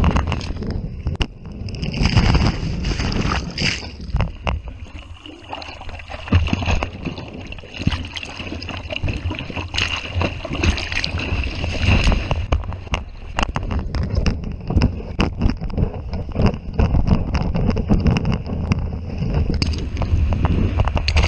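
Wind buffeting the microphone over the wash and rumble of surf, loud and uneven with crackling gusts.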